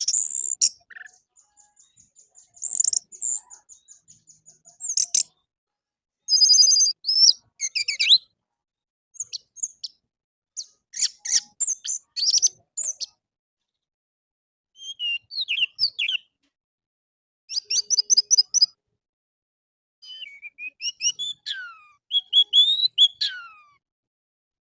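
Orange-headed thrush singing: a varied song of short, high whistled and warbled phrases, some with notes sliding downward, each phrase followed by a pause of a second or two.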